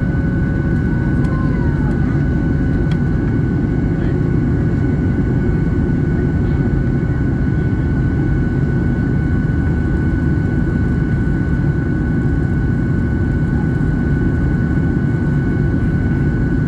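Boeing 737-800's CFM56 jet engines heard from inside the cabin during the climb after takeoff: a loud, steady rumble with a constant high whine over it.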